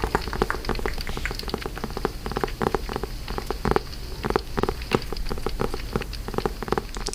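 Fire crackling, a dense run of irregular sharp pops and snaps of varying loudness.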